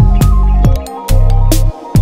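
Loud electronic backing music with a heavy bass line and punchy drum hits.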